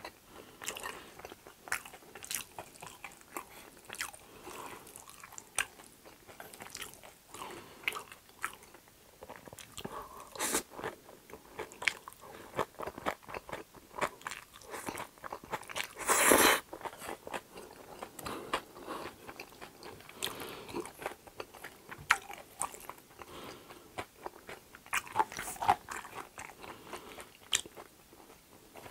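Close-miked eating: steady chewing and crunching with wet mouth clicks and smacks. About sixteen seconds in, a loud slurp as a mouthful of spicy chewy jjolmyeon noodles is sucked up.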